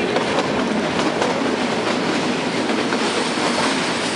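Kalka–Shimla narrow-gauge toy train running, heard from on board: a steady rumble of the carriage with the clatter of wheels on the rails.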